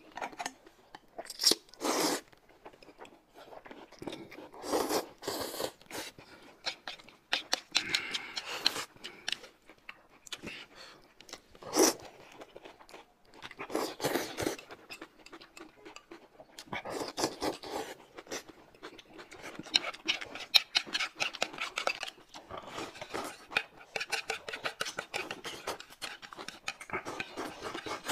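Close-miked slurping and chewing of noodles, in separate bursts of a second or two, then a faster, continuous run of wet smacking and slurping over the last several seconds.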